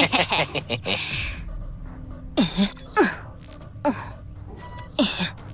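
Cartoon sci-fi sound effects: a burst of sharp electronic hits, then about four quick falling electronic swoops over a steady hum, as a holographic hand-scanner interface activates.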